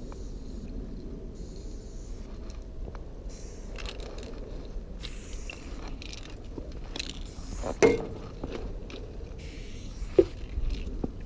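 Aerosol spray-paint cans hissing in short on-and-off bursts, with crunching and handling noise and two sharp clicks, about eight and ten seconds in.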